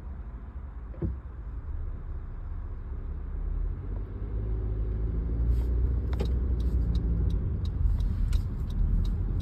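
Car engine and road rumble heard from inside the cabin while driving, getting louder about four seconds in as the car speeds up. A single knock comes about a second in and scattered sharp clicks near the end. The owner listens for a ticking noise that he says has faded to nearly nothing after fuel-injection cleaner.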